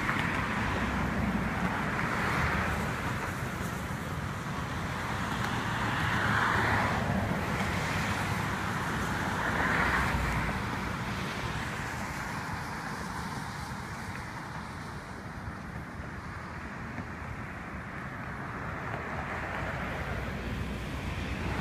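Cars passing on a wet road, their tyre hiss swelling and fading four times over a steady outdoor rumble.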